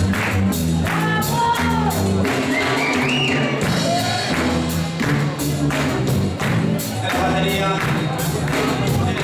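Live roots reggae band playing: a repeating bass line and drums keep a steady beat, with a gliding melodic line over the top during the first few seconds.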